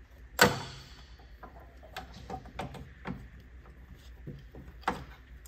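Hands working at a classic Mini's distributor: a sharp plastic-and-metal click about half a second in, then a run of small clicks and taps, and another sharp knock near the end.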